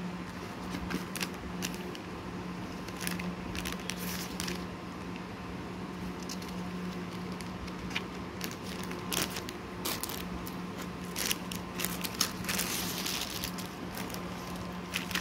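Handling noise from a small spiral-bound paper diary: scattered light clicks, taps and paper rustles as its cover and pages are turned. About three-quarters of the way through there is a longer stretch of plastic crinkling.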